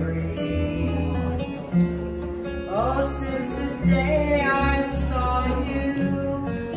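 A woman singing a slow ballad to her own strummed acoustic guitar, with a bass holding sustained low notes underneath.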